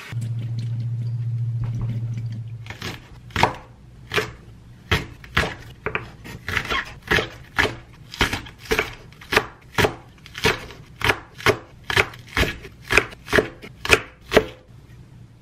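Kitchen knife slicing a green onion on a wooden cutting board: steady chopping strokes, about two a second, that start about three seconds in. A low steady hum fills the first few seconds before the chopping begins.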